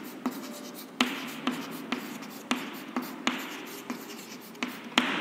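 Chalk writing on a blackboard: scratchy strokes broken by sharp taps as the chalk strikes the board, about two taps a second.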